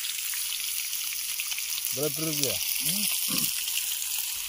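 Fish frying in a pan of hot oil, a steady crackling sizzle. Two short voice sounds come in about two and three seconds in.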